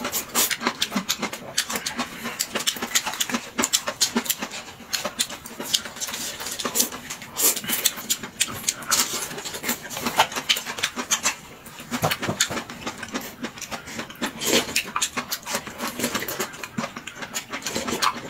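Close-miked eating of noodles: rapid wet slurps, chewing and smacking mouth sounds, one quick noise after another.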